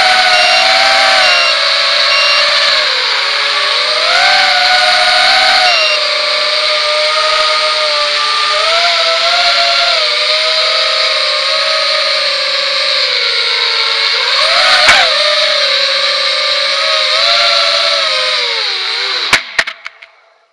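Brushless motors and propellers of a QAV250 racing quadcopter whining, heard on board, the pitch rising and falling with the throttle. Near the end come a few sharp knocks, and the motors cut off as the quad sets down.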